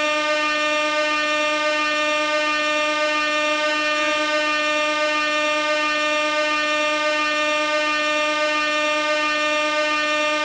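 Gas air horn blaring in one unbroken, steady blast at a single pitch.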